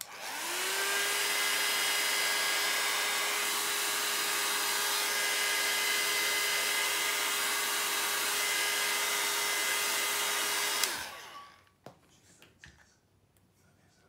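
A small handheld electric heat tool blowing air close over wet alcohol ink on paper. Its motor spins up with a short rising hum, runs steadily with a whoosh of air for about eleven seconds, then clicks off and winds down. A few faint taps follow.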